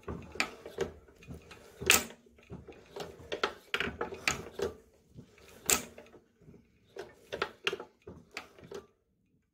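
Irregular clicks and knocks from the valve gear of a Nelson Brothers hit-and-miss engine, a few a second and unevenly spaced, over a faint steady hum. The clicking cuts off abruptly near the end.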